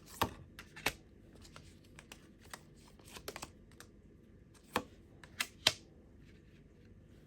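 Tarot cards being handled and laid down on a table: scattered short taps and slaps, a cluster of the loudest about five seconds in.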